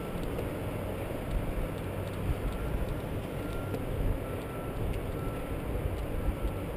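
Wind buffeting the microphone of a helmet-mounted action camera: a steady low rumble with scattered light ticks.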